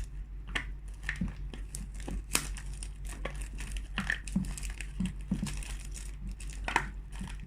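Plastic food bags crinkling and rustling in irregular short crackles as they are handled and opened, over a steady low hum.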